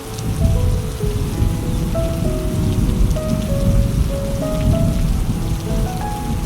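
Steady rain falling with a deep low rumble that swells about a third of a second in. A slow melody of long held notes plays over it.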